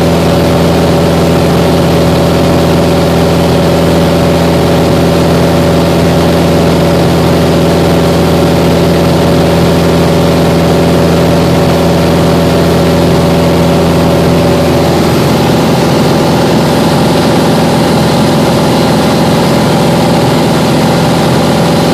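Grumman Yankee light plane's four-cylinder Lycoming engine and propeller, heard from inside the cockpit, running steadily in flight as a loud, even drone. About fifteen seconds in, the engine's tone shifts slightly and then holds steady again.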